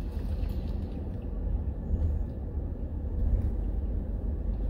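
Minivan driving along a sandy dirt track, heard from inside the cabin: a steady low rumble of engine and tyres.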